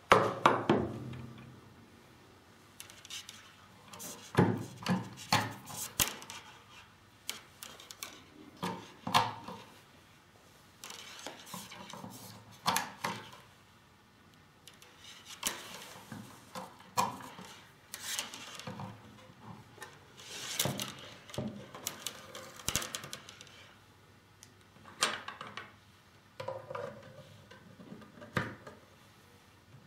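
Handling noise from fitting a Zhaga receptacle into a plastic luminaire housing, threading its wires and pressing its sealing cap on. Irregular knocks, clicks and rustles of plastic parts and wires come in clusters a few seconds apart.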